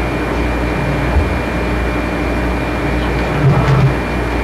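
Steady hum and hiss of room noise on an old home-video recording, with a brief low murmur about three and a half seconds in.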